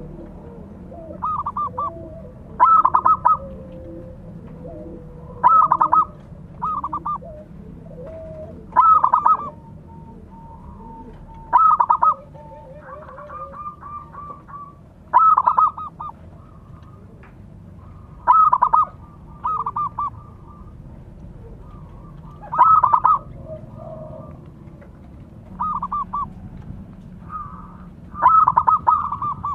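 Zebra doves (perkutut) cooing: a loud stuttering coo phrase comes about every three seconds, some with a shorter, quieter phrase just before or after. Fainter coos sound in the gaps.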